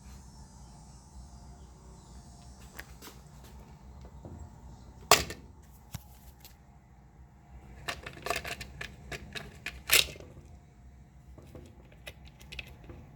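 Washing machine agitator parts being handled and fitted back together by hand: scattered clicks and knocks, with a sharp loud knock about five seconds in, a run of smaller clacks a little later and another loud knock about ten seconds in.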